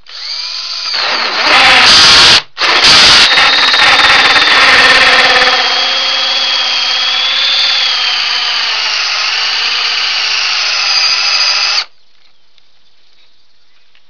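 Cordless DeWalt drill driving a 1½-inch hole saw into a wooden board. The motor whine builds and the saw cuts in loudly, with a brief stop about two and a half seconds in. It then runs on as a steadier whine and cuts off sharply near the end.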